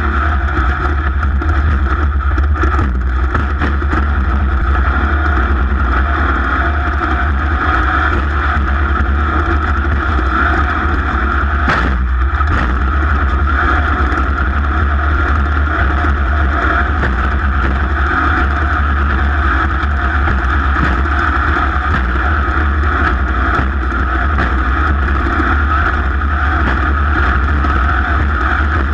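A racing vehicle's engine running steadily under power, with one sharp knock about twelve seconds in.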